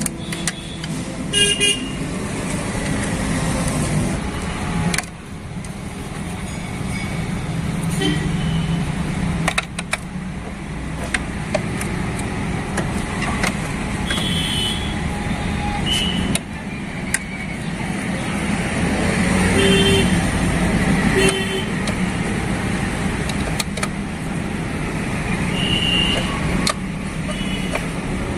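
Steady road traffic going past, with several short vehicle horn toots and a few sharp clicks.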